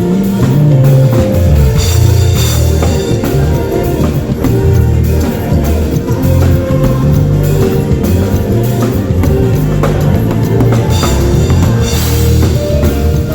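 A live band playing at a sound check: drum kit with bass drum and cymbals, bass guitar and guitar, with cymbal crashes swelling twice.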